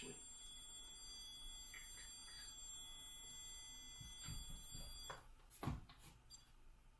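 Electronic stud finder giving a steady high-pitched beep for about five seconds, the signal that it is over a stud, then cutting off; a single soft knock follows shortly after.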